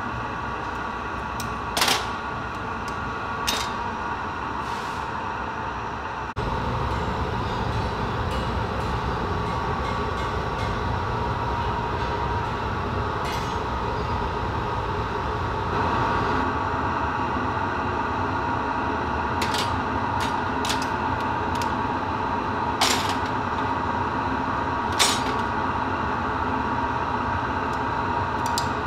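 Steady roar of a glassblowing furnace and its gas burners, with a few sharp metal clinks of hand tools now and then.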